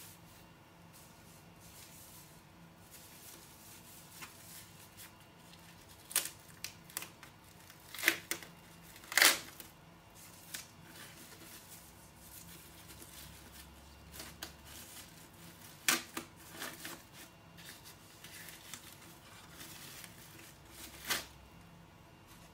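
Thin plastic wrapping crinkling and rustling in short bursts as it is peeled and pulled off a small cylindrical device, with several sharp crackles, the loudest about a third of the way in.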